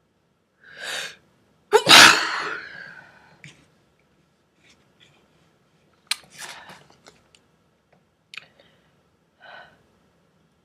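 A person's breathy sneeze: a short gasping in-breath about a second in, then one loud sneeze that trails off over about a second. Quieter breaths and small mouth clicks follow.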